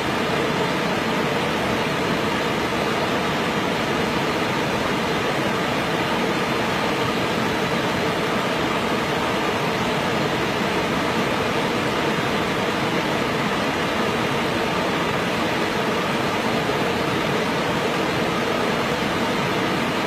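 Steady, unbroken rush of falling water from a waterfall.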